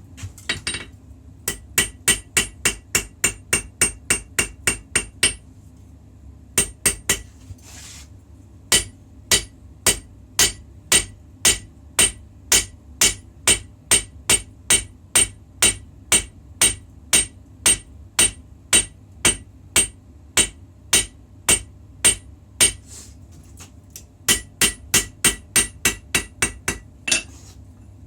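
Hammer striking steel while forging a puukko knife blade: sharp, ringing metal-on-metal blows in runs of about two to three strikes a second, broken by a couple of short pauses.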